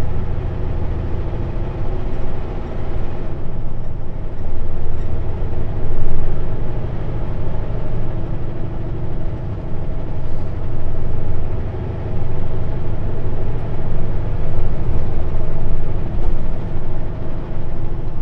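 Cab interior of a Kenworth W900L semi truck on the road: a steady low diesel engine drone mixed with road noise, with a faint high whine that rises and falls.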